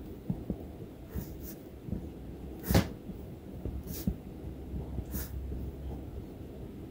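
Fine felt tip of a Sharpie Pen scratching and tapping on paper while drawing short squiggly lines. About five brief, sharper scratches stand out; the loudest comes about three seconds in.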